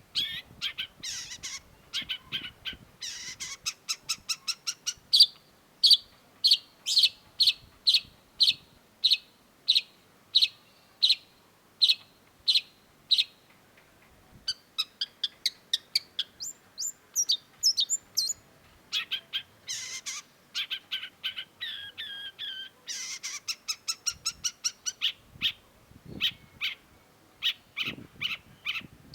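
Long-tailed shrike singing: a varied, chattering run of sharp high chirps and quick trills, with a long stretch of evenly repeated short notes at about two a second in the first half.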